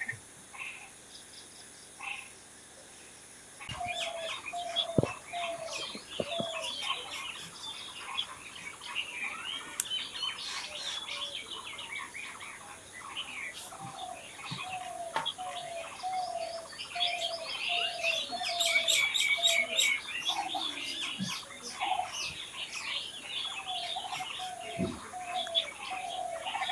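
A chorus of small birds chirping and singing. It is fairly quiet for the first few seconds, with a few faint chirps, and the chorus starts about four seconds in. Beneath the chirps, a lower, short call note repeats steadily in runs, a little under twice a second.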